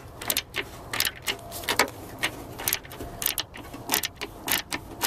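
Ratchet wrench clicking in short runs, about two a second, as a very tight screw is worked loose.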